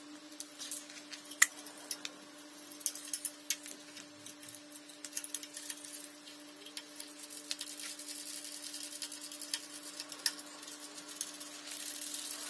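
Scattered light clicks and taps of small tools and hardware being handled while wires are fastened to a new USB wall outlet, the sharpest click about a second and a half in, over a faint steady hum.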